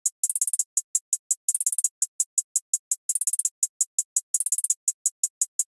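Programmed trap hi-hat pattern from a drum machine or sampler: a steady run of short, crisp ticks with quick stuttering rolls about every second and a half, nothing else playing.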